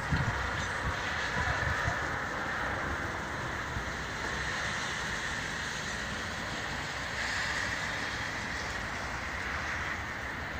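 Steady outdoor background rush with uneven low rumbling, like wind buffeting the microphone.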